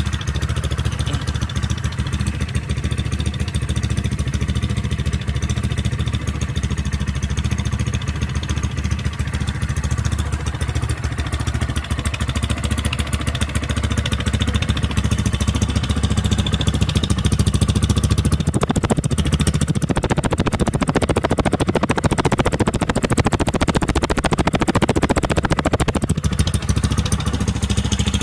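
Honda Titan 160 single-cylinder four-stroke motorcycle engine idling steadily through a freshly fitted aftermarket exhaust, warming up after a start. The idle grows a little louder and fuller in the second half.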